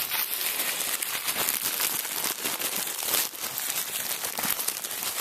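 Plastic packaging crinkling and rustling steadily as it is handled and pulled, with a few sharper crackles.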